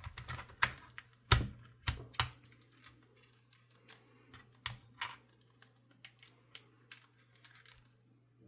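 Small Phillips screwdriver clicking and tapping against the tiny screws and plastic case of a micro RC servo being unscrewed, irregular sharp clicks that are loudest in the first couple of seconds and then grow fainter.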